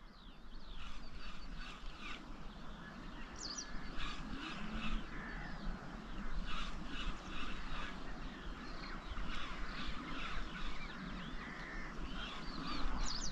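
Outdoor bird chorus: many short calls repeated in quick succession.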